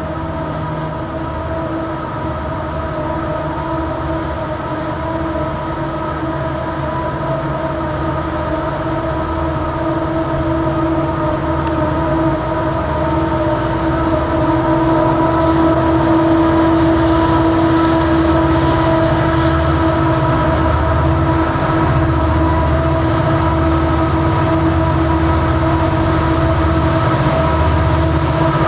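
Conrail EMD SD60 diesel locomotives working hard upgrade on a loaded coal train, their turbocharged 16-cylinder two-stroke prime movers howling with a steady high whine over a deep pulsing rumble. The sound grows steadily louder.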